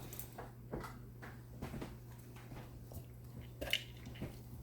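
Scattered small clicks and knocks of small parts and tools being handled on a workbench, with a sharper click nearly four seconds in, over a steady low hum.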